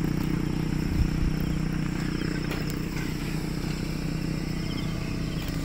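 An engine running steadily at an even pitch, a low drone.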